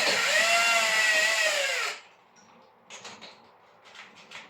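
Cordless drill motor whining, its pitch wavering and then sagging as it stops about two seconds in: the battery is running flat. A few faint knocks follow.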